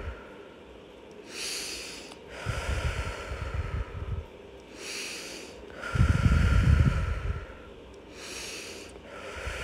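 A woman's slow, deep breathing close to the microphone while she holds a yoga stretch: about three breath cycles, each a hissing inhale followed by a longer exhale with a low rumble. The loudest exhale comes a little past the middle.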